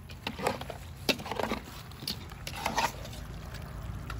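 A spatula stirring and turning chunks of cooked, sauced meat in a large metal pot: irregular wet squelches and light scrapes against the pot.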